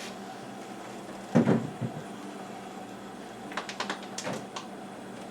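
Kitchen handling sounds over a steady low hum: one solid knock of something set down about a second and a half in, then a quick run of small clicks and taps near the end, as ingredient bottles and lids are handled.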